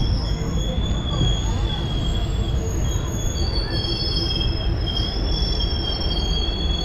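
Railway wheels squealing against the rails over a steady low rumble of a moving train, the squeal holding several high, slightly wavering pitches.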